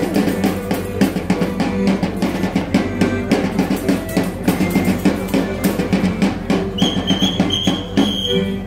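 Live Alagoan guerreiro folk music: accordion holding steady chords over a pandeiro and other percussion beating a fast, even rhythm, with no singing. Near the end a high, shrill tone sounds in a few short blasts over the music.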